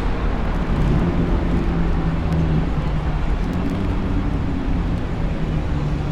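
Street traffic: a steady low rumble with the hum of a vehicle engine running close by.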